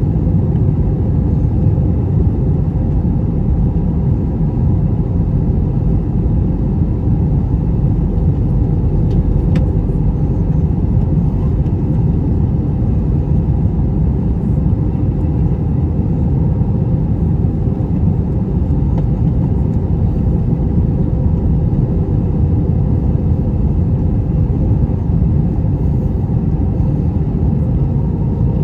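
Steady rumble of an Airbus A321-200 airliner in flight, with engine and airflow noise heard from inside the passenger cabin, as the jet descends toward landing. A faint steady hum runs under the rumble.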